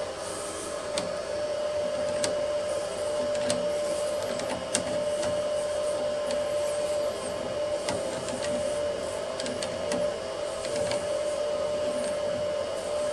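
Alfawise U10 3D printer's hotend cooling fan running with a steady whir, the hotend heated to 210 degrees. A few light clicks come from the PTFE feed tube and its fitting being handled at the hotend.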